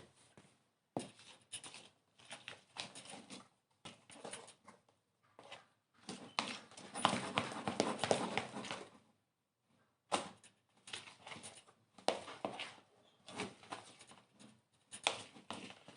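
Homemade fluffy slime (glue, shaving foam and borax activator) being mixed, with sticky squelching and clicking in irregular bursts and a longer, busier stretch of mixing in the middle.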